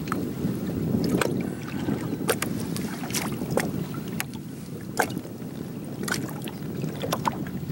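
Wind on the microphone and choppy water lapping against the jet ski's hull, steady throughout. About eight sharp clicks and taps are scattered through it as a jug fishing line and its plastic jug are handled at the side.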